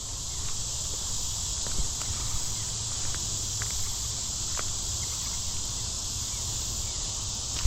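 Steady, high-pitched chorus of insects droning without a break, with a few faint scattered clicks and taps over it.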